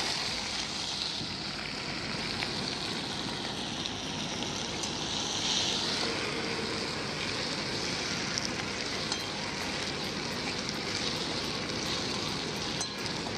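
Chopped onion, tomato and bell pepper sizzling steadily in hot oil with tempered cumin seeds in a wok on a camping gas stove, stirred now and then with a metal spoon.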